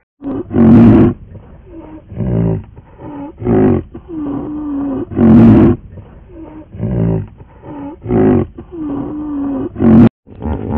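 An animal calling loudly over and over, with three loudest calls about a second in, in the middle and near the end, and shorter calls between them.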